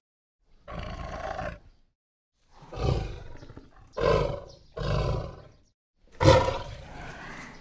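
Lion roaring: five roars in a row, each about a second long, with the loudest coming near the end.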